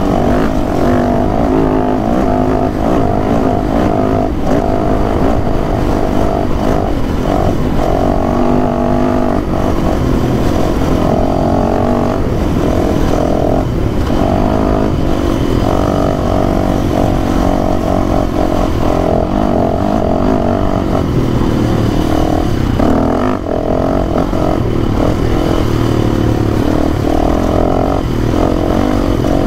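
Dirt bike engine running as the bike rides along a dirt trail, its pitch rising and falling with throttle and gear changes, with a brief dip in level a little past two-thirds of the way through. A constant low rumble of wind and ground noise runs underneath.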